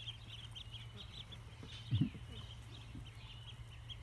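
Three-day-old ducklings peeping: a steady stream of short, high cheeps, many overlapping. A brief low sound about halfway through is the loudest moment.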